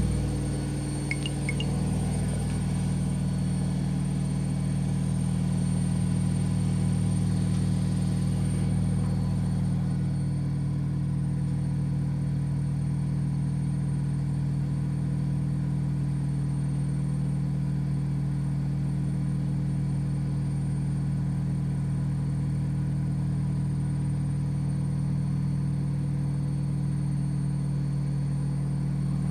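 Telefunken washing machine, a Vestel build, running on its spin cycle with a steady, loud low drone. It eases down a little at the start, then holds steady.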